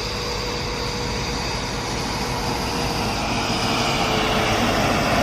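Heavy diesel machinery running steadily, a constant engine noise with a faint tone that dips slightly near the end.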